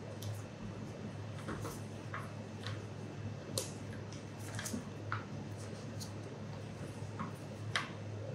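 Frozen chocolates being popped by hand out of a flexible silicone mold: scattered soft rustles and small clicks of the mold flexing and peeling away. Two sharper clicks, about three and a half seconds in and near the end, come as chocolates are set down on a stainless steel tray.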